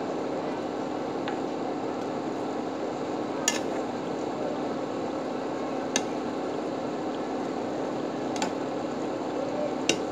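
Galunggong simmering and sizzling in adobo sauce in a wide pan, a steady sizzle with a hum under it, while a metal spatula clicks against the pan about four times as the sauce is spooned over the fish.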